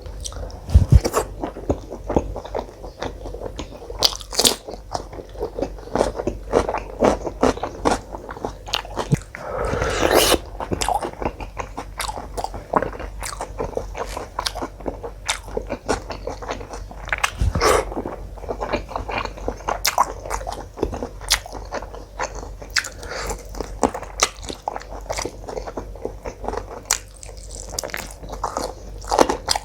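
A person chewing and biting food close to the microphone, with a steady run of irregular crunchy bites and clicks, and one longer, noisier sound about ten seconds in.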